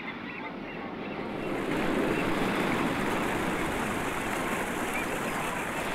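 Ocean waves washing, a steady rushing water noise that swells over the first two seconds and then holds.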